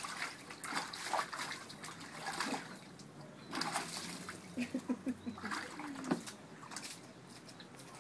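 Giant schnauzer splashing in bathwater in repeated bursts. About halfway through there is a short run of low vocal sounds from the dog.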